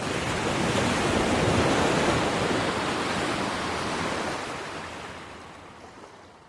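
Ocean surf: one wave rushing in, swelling over the first couple of seconds and then slowly fading away.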